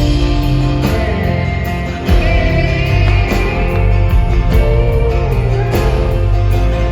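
Live rock band playing an instrumental passage between verses, with guitars and a steady drum beat, loud and full.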